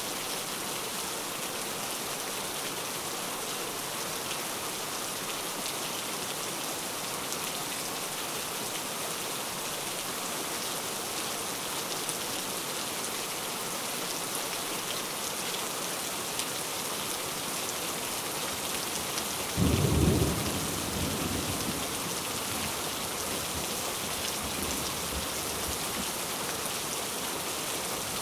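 Steady rain falling, with one low thunderclap about twenty seconds in that rumbles away over a couple of seconds.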